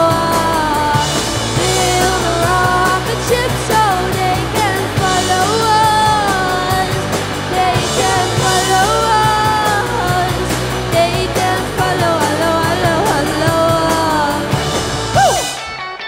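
Rock band playing live: a male singer over electric guitar, bass guitar and drums. The music cuts off suddenly near the end.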